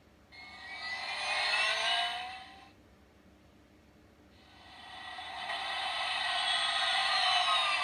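Recorded race-car engine sound effects played through the tiny speaker of a Jackson Storm Racetrack Talkers toy car. There is a short rev that rises in pitch, then after a two-second pause a longer rev that swells and holds. The sound is thin and tinny, with almost no low end.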